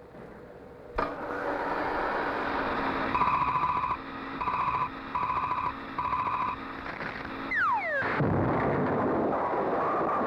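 Cartoon sound-effects track. A steady motor-like rumble starts abruptly about a second in, with four horn-like toots over it. Near the end a whistle glides steeply down in pitch into a rough, noisy rumble.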